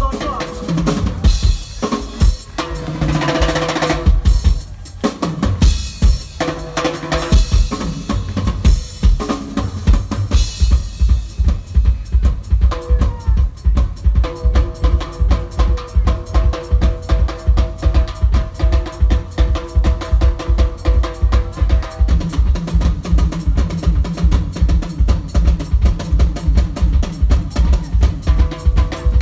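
Live Latin rock band playing a boogaloo groove, led by a drum kit keeping a steady, driving beat with congas and timbales. Held chords come in about halfway through, and a steady low bass line joins later.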